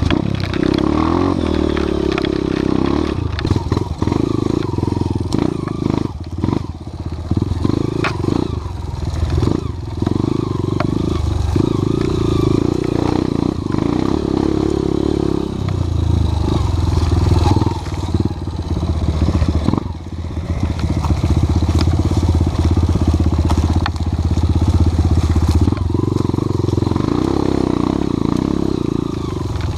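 Off-road trail motorcycle engine running under load, the revs rising and falling as it rides, with frequent knocks and clatter from the bike over rough ground.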